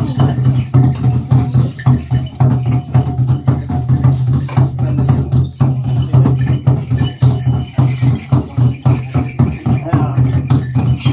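Fast, dense rhythmic percussion with rattling, clacking strokes several times a second, over a steady low hum.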